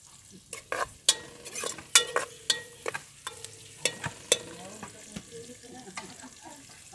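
Long metal ladle clanking and scraping against a large metal cooking pot as sliced onions and garlic are stirred in sizzling oil, the sautéing stage of the dish. The sharp clanks come in quick succession, the pot ringing faintly under them, and stop about four and a half seconds in, leaving a soft sizzle.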